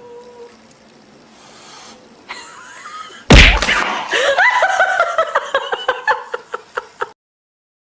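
A sudden loud thump a little over three seconds in, followed by a person laughing in quick, repeated bursts that stop abruptly near the end.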